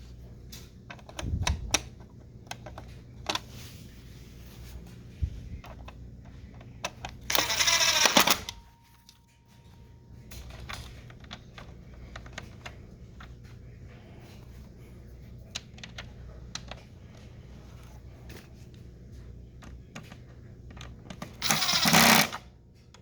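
Screws being driven back into a vacuum cleaner's plastic housing by hand: scattered small clicks and knocks of the screwdriver and plastic parts being handled, with two louder rasping bursts of about a second each, one about a third of the way in and one near the end.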